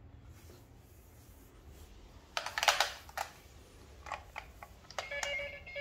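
Plastic clicks and rattles from a child's pink toy telephone being handled, then about five seconds in the toy starts playing an electronic beeping tune.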